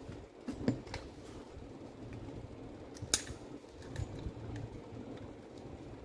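Small metallic clicks and clinks as pliers are worked into a drill's steel tool holder, with one sharp click about three seconds in, over a low steady hum.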